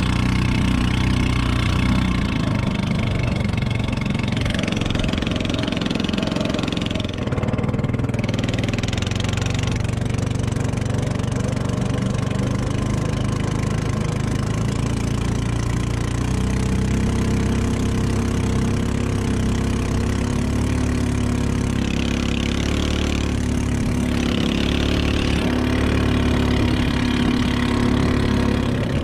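Ketinting longtail boat engine running steadily under way, its speed shifting up and down a few times as the throttle changes.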